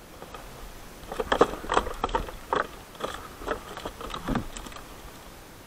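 A quick, irregular run of about a dozen knocks, clatters and scrapes as a landing net holding a channel catfish is moved against a plastic fishing kayak. It starts about a second in and stops after about four and a half seconds.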